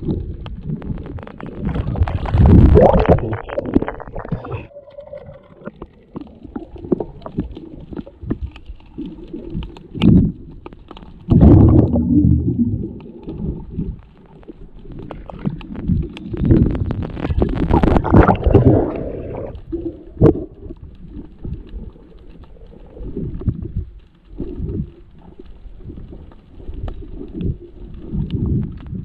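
Muffled underwater rumble from a camera held below the surface, with water rushing and sloshing in louder irregular surges a few times.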